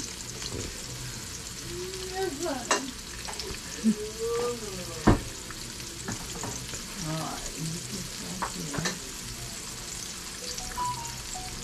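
Cornmeal-dredged green tomato slices frying in a pan of oil, a steady sizzle, with a few sharp taps, the loudest about five seconds in.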